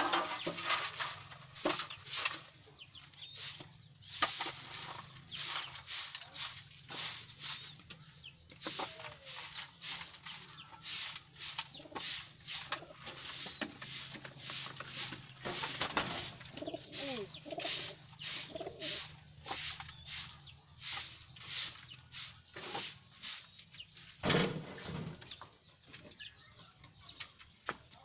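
Stiff twig broom sweeping a dirt floor littered with droppings, in short repeated strokes about two a second, with a louder knock or scrape near the end.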